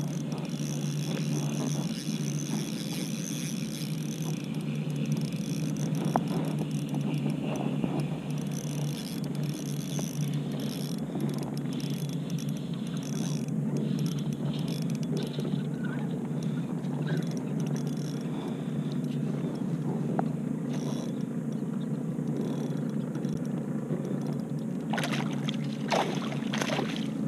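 A hooked bass being fought on a spinning rod from a kayak: the reel winds in the first several seconds over a steady low rumble, and there are a few sharp splashes near the end as the fish comes to the net.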